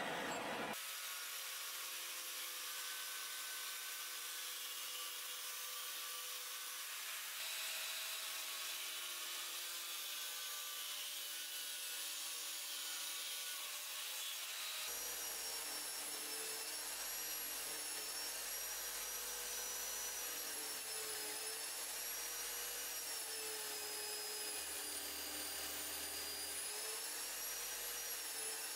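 Power grinder abrading steel rebar, giving a steady grinding hiss with a motor whine. About halfway through, this gives way to a wire brush wheel spinning against the rebar, its motor whine wavering as the piece is pressed on and eased off.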